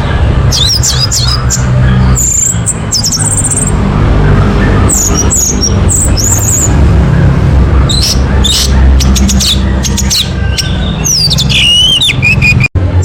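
Orange-headed thrush song: short bursts of quick, varied whistled phrases gliding up and down, over a loud steady low hum. The sound cuts out for an instant near the end.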